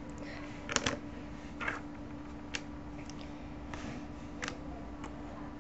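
Plastic Rubik's Cube pieces clicking and knocking as they are fitted back together by hand, about half a dozen separate clicks spaced irregularly, a second or less apart.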